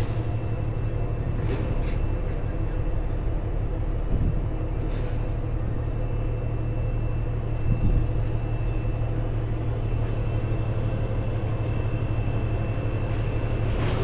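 A ship's engine and machinery running: a steady low drone with a faint, constant high-pitched whine over it.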